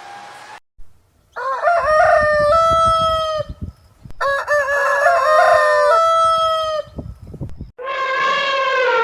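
A rooster crowing twice, each crow a cock-a-doodle-doo of about two seconds with stepped, held notes. Near the end a different, lower call that falls in pitch begins.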